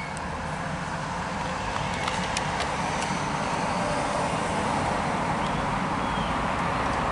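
Narrow-gauge passenger train getting under way: the rumble of its wheels on the rails and its diesel-hydraulic locomotive building steadily louder, with a few light clicks a couple of seconds in.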